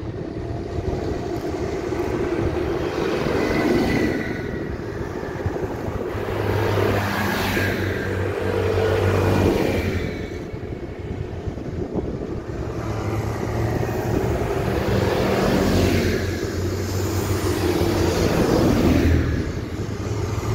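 Farm tractors driving past one after another. Their diesel engines swell and fade several times as each one nears and passes.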